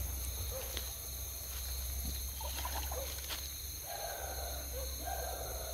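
Night insect chorus, a steady high-pitched trilling, with a few soft knocks in the middle. From about four seconds in, a buzzy animal call sounds twice, each about a second long.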